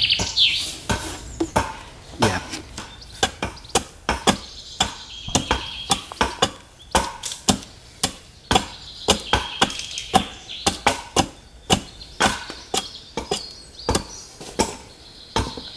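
Bottoming adze chopping into a wooden Windsor chair seat blank to hollow out the seat: a steady run of sharp chops, about two a second.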